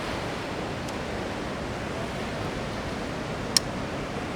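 Steady rushing outdoor noise, like wind and surf by the sea, with a single sharp click about three and a half seconds in.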